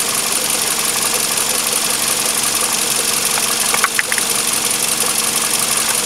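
Steady mechanical running noise with a constant low hum, and a few light clicks about four seconds in.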